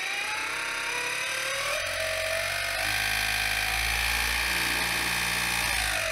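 2,000-watt 48-volt e-bike kit motor driving a converted Sears outboard's lower unit and propeller shaft out of the water, under throttle. Its whine rises in pitch for the first couple of seconds, then holds steady, with a deeper hum joining about two to three seconds in, and it starts to wind down at the very end.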